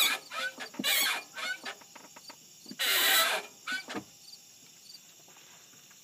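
Squeaks and creaks from a 2009 Subaru WRX hatchback's clutch pedal and firewall as the clutch is pushed: about seven short squeaks in the first four seconds, one longer one about three seconds in. The owner suspects cracked or broken spot welds in the firewall.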